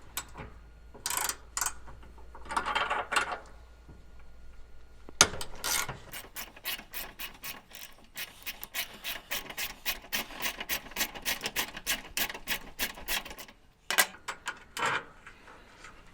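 Hand tool worked on metal in quick, even strokes, about four a second, with a few scattered strokes before and after, removing the trailer gate's old, worn drop locks.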